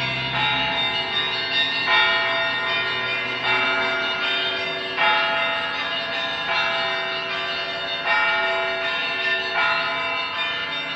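Russian Orthodox monastery bells rung together in a rhythmic peal (zvon). A fresh stroke of several bells comes about every second and a half over their ringing tones, while a deep bell's hum dies away in the first few seconds.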